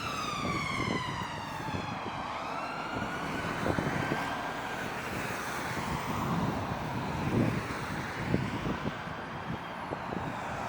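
Emergency vehicle siren wailing over road traffic noise. Its pitch falls over the first two seconds, rises again, then fades out.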